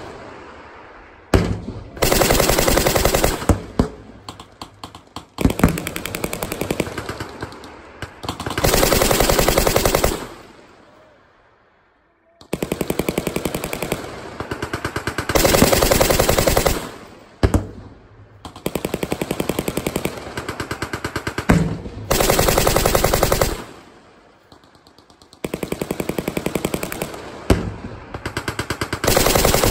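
Machine guns firing long automatic bursts, one to two seconds each, over and over with short pauses between them. This is the overhead fire of a night infiltration course.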